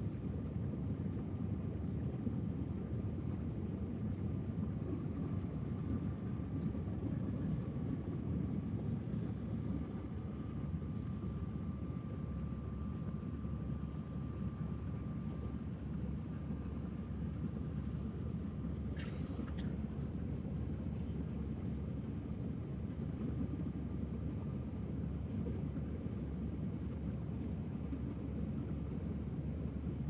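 Steady low rumble of a vehicle in motion, with a faint steady tone above it and a brief hiss about two-thirds of the way through.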